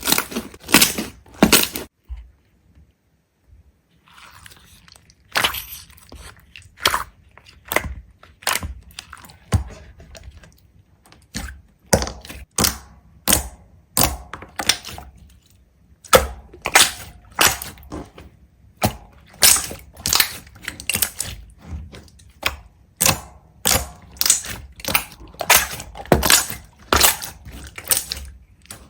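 A series of sharp cracks and crunches, about one or two a second, with a pause of a few seconds near the start.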